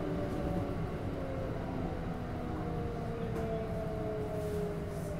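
Kintetsu electric local train running, with the whine of its traction motors: several tones slowly falling in pitch as the train slows into a station, over a steady low rumble of running noise.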